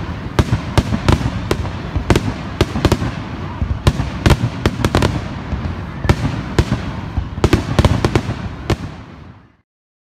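Aerial firework shells bursting in a rapid string of bangs, several a second, fading away and stopping near the end.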